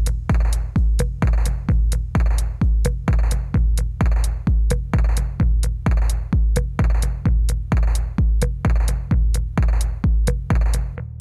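Electronic background music with a steady drum-machine beat and a heavy kick drum; the beat drops out right at the end.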